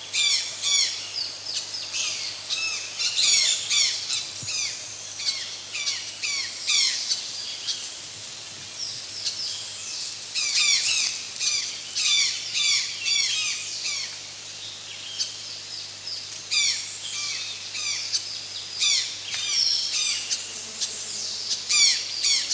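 Birds calling: quick runs of short, sharp, downward-sliding chirps, with short pauses between the runs.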